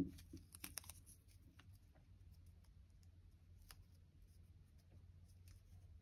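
Near silence with faint scattered ticks and light rubbing as fingers press a sticker down onto a paper planner page.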